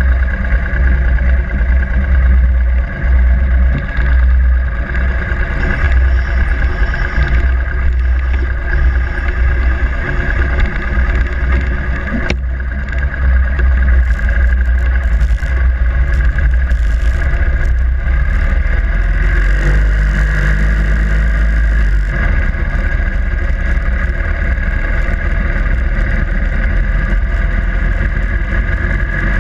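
Harley-Davidson Sportster Iron 883's air-cooled V-twin engine running steadily with a deep, loud rumble.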